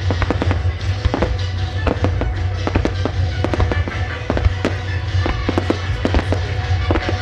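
Aerial fireworks shells bursting and crackling in quick succession, many sharp bangs a second, over show music from loudspeakers with a steady bass line.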